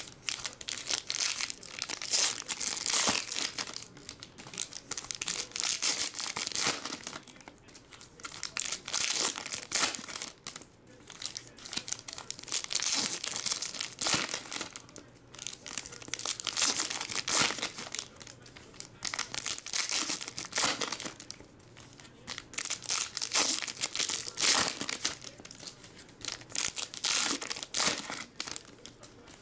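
Foil trading card packs crinkling and tearing as they are ripped open by hand, in repeated bursts of crackling.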